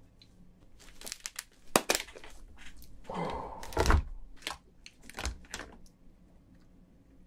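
Cooked giant crayfish shell being cracked and pulled apart by gloved hands: irregular snaps, cracks and crinkling as the tail meat tears out of the shell, loudest about two and four seconds in.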